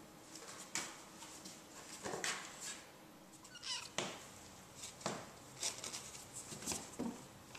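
Kittens under eight weeks old playing on a cardboard box and hardwood floor: irregular scrabbling, claw scratches and light thumps, with a short high kitten mew about three and a half seconds in.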